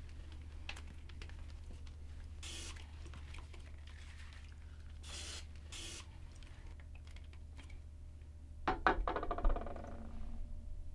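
Several short spray hisses, then a loud growl from a man's voice about nine seconds in that fades over a second or so, over a steady low hum.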